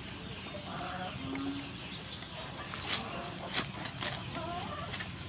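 A cleaver chopping through crispy fried pork belly on a wooden board: about half a dozen crunchy cuts through the crackling in the second half. Short animal calls in the background.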